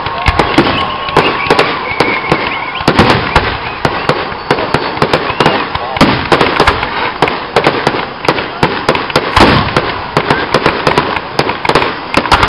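Aerial fireworks bursting in quick succession: a dense, continuous run of sharp bangs and crackles, several a second.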